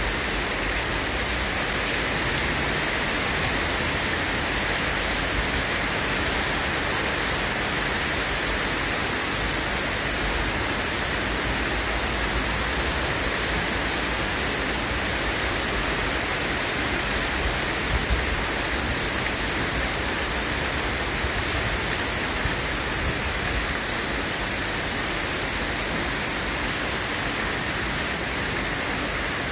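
Heavy rain falling steadily on leafy trees: an even, unbroken hiss.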